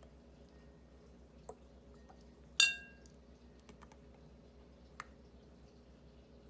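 Kitchen utensils handled while measuring lemon juice: one sharp, ringing clink, like a measuring spoon striking a glass or ceramic bowl, about two and a half seconds in, with a few faint taps and clicks around it.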